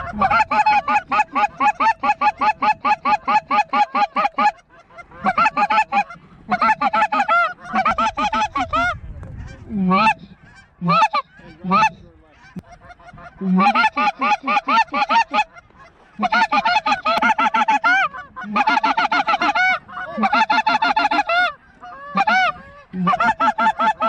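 Goose call blown in fast runs of high honks, about six notes a second, each run lasting a few seconds with short pauses between. A handful of single, lower, drawn-out notes come in the middle, the calling that hunters use to pull in a passing group of snow geese.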